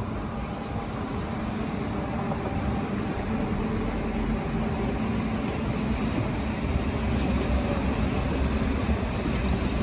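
Renfe electric passenger train running past: a steady rumble of wheels on the rails with a low hum, growing a little louder as it goes by.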